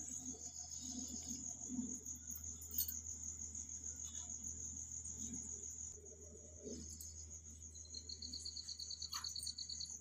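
Crickets chirping in a steady, pulsing high trill. A second, lower-pitched trill joins about eight seconds in and stops near the end.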